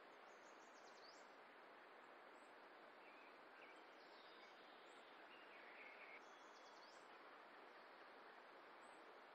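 Near silence: faint steady outdoor background hiss, with a few faint high bird chirps in two short groups, one near the start and one about two-thirds of the way through.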